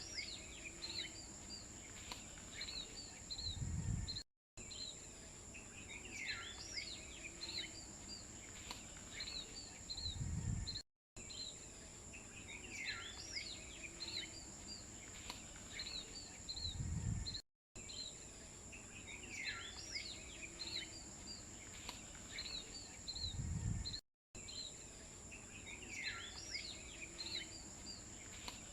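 Looped outdoor ambience: bird chirps over a steady high buzz, with a short low rumble at the end of each pass. The same few seconds repeat about every six and a half seconds, with a brief cut to silence between repeats.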